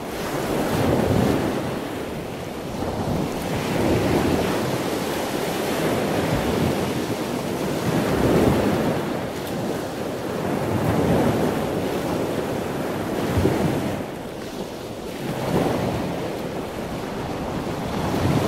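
Ocean waves surging and breaking in a continuous wash, swelling and easing every few seconds.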